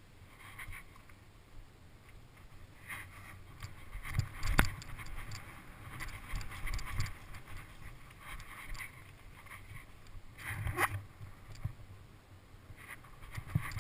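Mountain bike riding down a dirt forest trail, heard from a camera on the bike or rider: an uneven rumble of tyres over dirt and roots with the bike rattling. Sharp knocks from bumps come about four and a half seconds in and again near eleven seconds.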